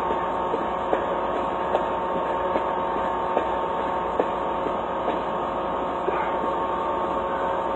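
Steady machine hum at a truck fuel pump while the truck is being fuelled, holding several fixed tones, with scattered light clicks.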